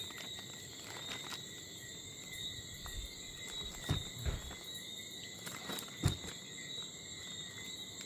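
Night insects calling steadily in continuous high-pitched tones, with a few soft knocks of handling about four and six seconds in.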